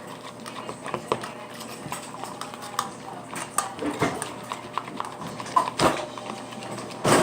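Sticky homemade slime being stirred with a utensil in a container: irregular clicks and taps, with two louder knocks about six seconds in and near the end.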